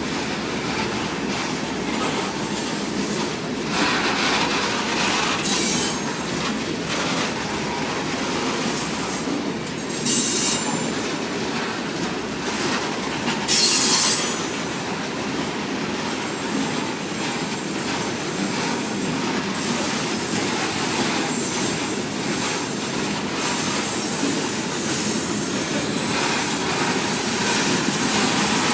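Freight train cars rolling past: a steady rumble of steel wheels on rail, with a few short bursts of high-pitched wheel squeal in the first half.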